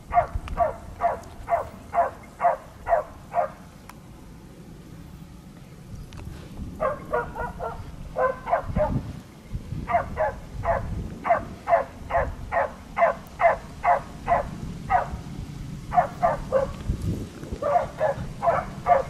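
Hunting dog barking in fast, evenly spaced runs of about two to three barks a second, breaking off a few times and starting again. A steady low rumble runs underneath.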